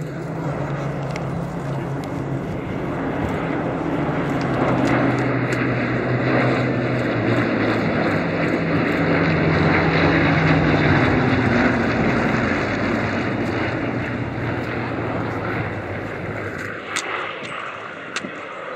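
Several Hawker Hurricanes' Rolls-Royce Merlin V12 engines droning as the formation flies past. The sound builds to its loudest about ten seconds in, then drops in pitch as the aircraft pass and fades away.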